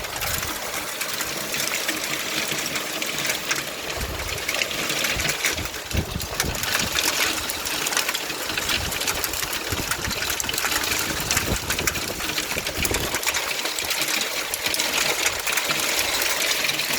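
Large hailstones falling hard: a dense, steady clatter of countless small impacts.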